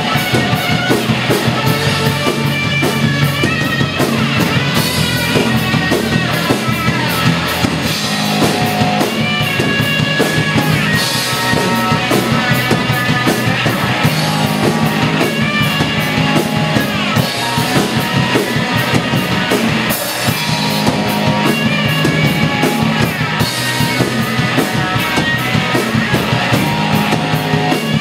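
Live rock band playing loud: electric guitar over a drum kit keeping a fast, even beat.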